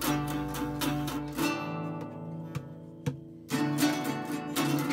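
Acoustic guitar strumming a rhythmic chord pattern. About a second and a half in, the strumming stops and a chord is left ringing, dying away. Strumming picks up again about three and a half seconds in.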